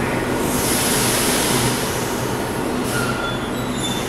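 Sydney Trains Millennium (M-set) electric train standing at the platform with a steady low hum. A burst of hiss comes about half a second in and lasts about a second, and brief high-pitched squeals come near the end.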